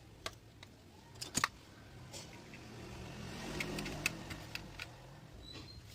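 Scattered small clicks and taps of hands working with tools and small parts on an opened Bluetooth speaker. The loudest pair of taps comes about a second and a half in, and a quick run of clicks follows a little before the end.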